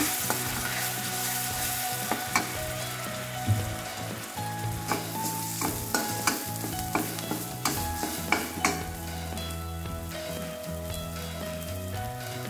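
Ground yellow curry paste sizzling in hot oil in a stainless steel wok while a metal spatula stirs and scrapes it, with irregular clinks of the spatula against the wok. The paste is being sautéed until fragrant and cooked through.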